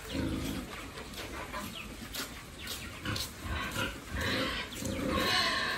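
Pigs eating at a feed trough: a run of short chomping clicks and snuffles, with two louder stretches of noise about four and five seconds in.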